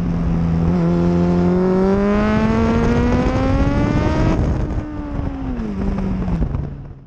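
Kawasaki ZXR race motorcycle's inline-four engine recorded onboard, revs climbing steadily under hard acceleration. About four seconds in the throttle is shut and the revs fall away, before the sound fades out at the end.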